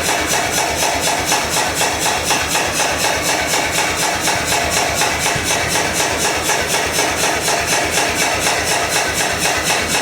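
Power hammer running, its ram beating steadily at about five strokes a second.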